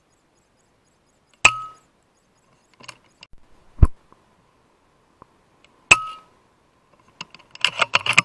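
Two shots from an FX Impact M3 .22 PCP air rifle, each a sharp crack with a brief ringing tone, about four and a half seconds apart, with a heavy thump between them. Near the end comes a quick run of metallic clicks and clinks.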